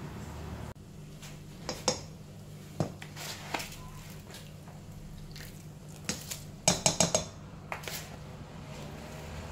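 Kitchenware being handled: scattered sharp clinks and knocks, with a quick run of them about seven seconds in, as a plastic bowl of washed rice is brought to a pot of steaming turmeric broth on the hob. A low steady hum runs underneath.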